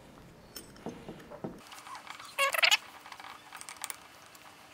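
A 2 mm hex key working a small bolt on a gimbal's motor mount: light metal clicks and ticks, with one short, high squeak about halfway through.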